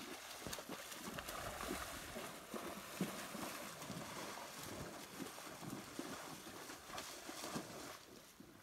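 Water splashing and sloshing as animals wade and move about in a shallow muddy pond, with many small irregular splashes and knocks. It drops away near the end.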